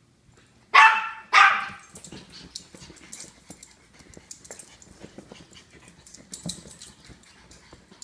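A Japanese Chin barking twice in quick succession about a second in, two loud, sharp barks, followed by lighter scuffling and clicking as the dogs move about on a leather sofa.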